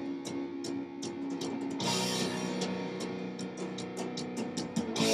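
Guitar chords ringing with sharp ticks in a rhythm over them, like drum or cymbal hits, with a new chord struck about two seconds in and again near the end.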